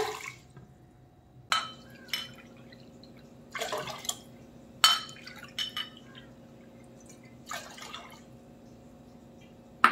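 Water poured from a ceramic bowl into a pressure cooker full of washed rice and moong dal, in several short splashes.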